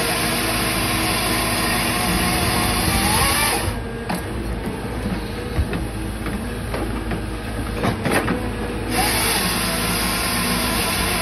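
Grapple saw's hydraulic chainsaw bar running and cutting through a log over the CAT 311F excavator's diesel engine. The saw stops about four seconds in, leaving the engine running with a few sharp knocks, and starts again about nine seconds in.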